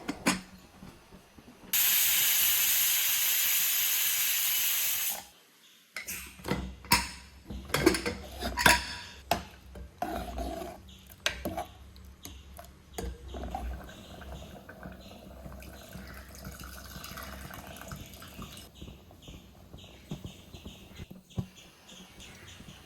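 Pressure cooker releasing steam in a steady hiss for about three seconds that cuts off suddenly; the sambar's dal and vegetables are cooking under pressure. After it, pots and utensils clink and knock.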